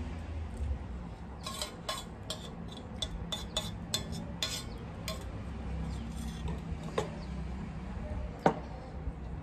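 Metal tableware clinking and scraping: spoon and serving dish knocking against metal plates in a quick run of clinks, then two louder single knocks near the end.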